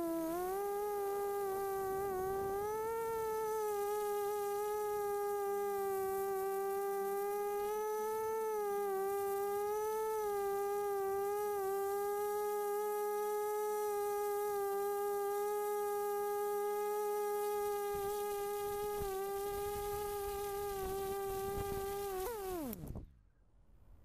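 DRQ250 Mini-D FPV quadcopter's motors and propellers buzzing at a steady pitch in flight, heard from on board with slight rises and dips as the throttle changes. Near the end the pitch falls sharply as the motors spin down on landing, and the buzz cuts off.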